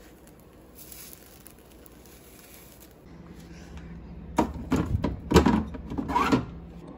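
Condiment bottles knocking and clinking against a refrigerator door shelf as they are pulled out: a handful of sharp knocks over about two seconds, starting about four seconds in.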